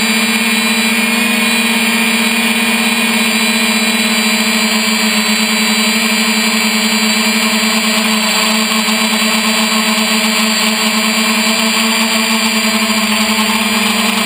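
3DR Iris+ quadcopter's four brushless motors and propellers, heard close up through its onboard camera, running in flight with a steady hum.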